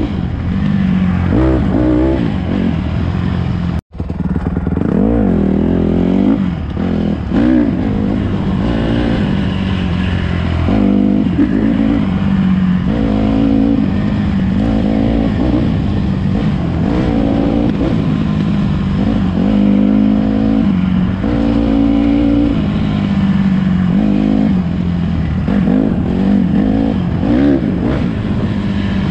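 Honda CRF150RB dirt bike's single-cylinder four-stroke engine under way, its pitch rising and falling again and again as the throttle is worked and gears change. The sound cuts out for a moment about four seconds in.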